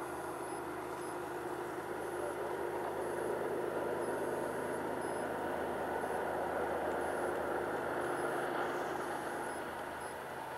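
Steady rumble of an approaching diesel freight train, growing louder about two seconds in and easing slightly near the end.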